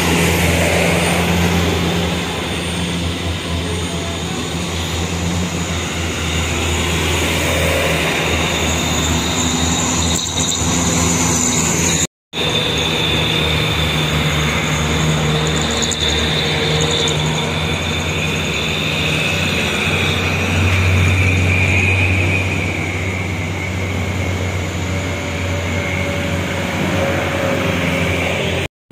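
Diesel engines of heavy cargo trucks running as the convoy passes, a steady low drone with a thin high whine above it. The sound cuts out for a moment about twelve seconds in.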